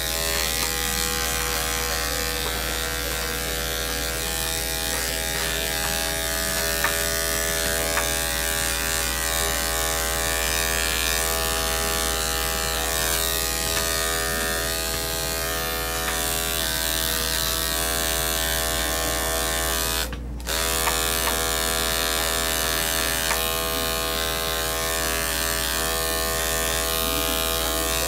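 Electric dog grooming clipper running steadily as it shaves a dog's curly coat short, a constant buzzing hum. The hum cuts out for a moment about twenty seconds in, then resumes.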